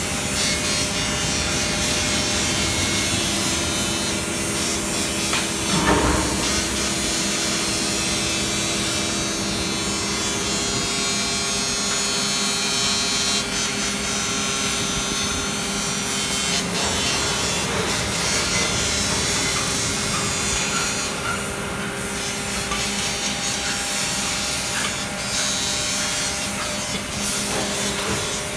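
Continuous metalworking factory noise: machinery running with a steady hum under a rough rasping, sawing-like noise, with a single knock about six seconds in.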